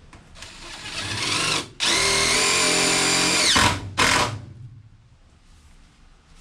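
Cordless drill/driver driving a screw into wood. The motor whirs up, stops for a moment, runs steady and loud for about two seconds, winds down, and gives one short last burst.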